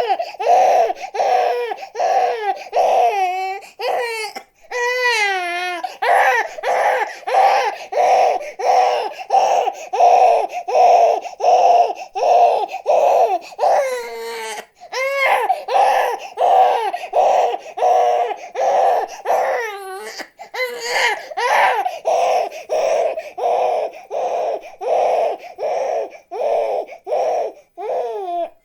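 Infant crying hard in short rhythmic cries, about two a second, broken now and then by a longer wavering wail.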